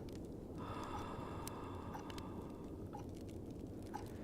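Fireplace crackling softly: scattered small pops and snaps over a steady low rumble of the fire. A steady whistle-like tone comes in about half a second in and fades out near the three-second mark.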